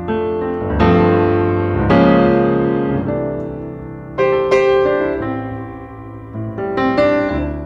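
Background piano music: chords struck one after another, each ringing and fading before the next.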